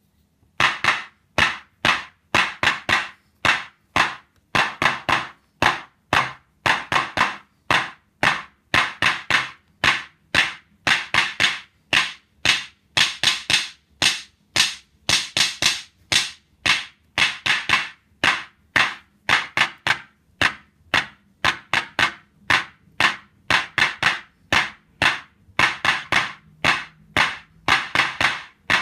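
Soviet Lel KL clapper drum synth firing electronic handclap sounds, one for each drumstick hit on its pad, about two a second, each a sharp noisy clap with a short reverb tail. Its tone and hall knobs are being turned as it plays.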